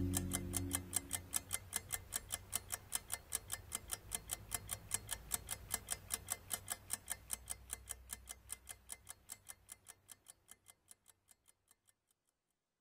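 Clock ticking in a rapid, even rhythm that gradually fades and stops near the end, with the tail of the music dying away in the first second or so.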